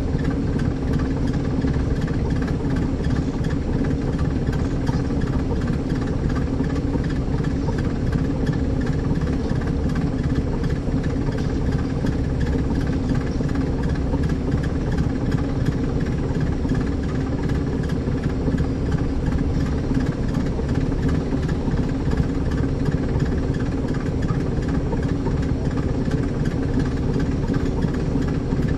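Caterpillar C13 ACERT inline-six diesel engine of a NABI 40-foot transit bus running steadily, heard from the rear seats inside the bus, close to the rear-mounted engine.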